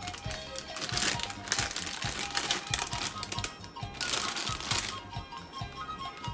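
Background music with a steady beat, over a fast run of short kitchen knocks and clatter, about three a second.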